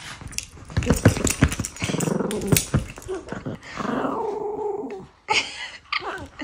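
Cavalier King Charles Spaniel growling in play while mouthing and shaking a rope toy on blankets, with quick clicks and rustles in the first three seconds, then a longer pitched growl about four seconds in and short bursts near the end.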